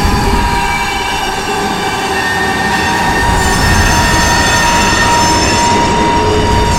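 Haunted-house elevator sound effect: a loud continuous rumble with long, steady metallic squeals over it, like an elevator car grinding and screeching in its shaft.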